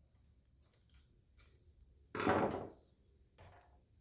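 A few light clicks of screwdriver work, then about two seconds in a short, loud plastic scrape and snap as the miter saw's cord clip pops off the power cord.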